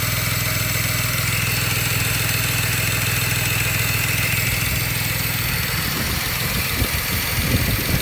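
BMW 335 engine idling with a steady pulsing note that turns uneven about six seconds in, with a few sharp thumps. The owner has misfire codes after changing the valve cover gasket.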